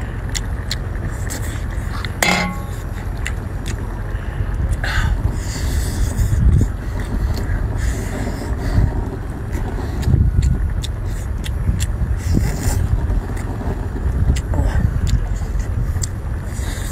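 Close-up eating sounds of a man picking apart and sucking meat off pieces of cooked turbot, with scattered small clicks and smacks and a few brief sucking hisses, over a steady low background rumble.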